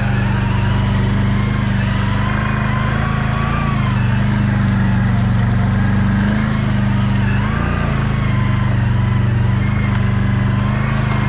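ATV engine running steadily under way, its note dipping and picking up again twice, a little under four seconds in and again near eight seconds.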